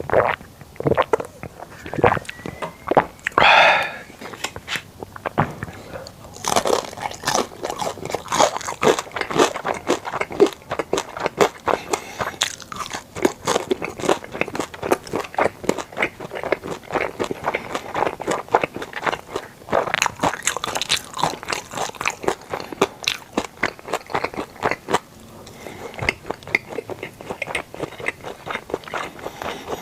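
Close-miked eating sounds: a person chewing and biting into sushi, with many quick, irregular crunchy clicks and wet mouth sounds, thinning out briefly about 25 seconds in.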